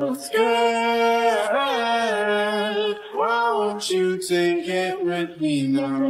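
Background music carried by a sung voice holding long, steady notes, with short breaks between phrases.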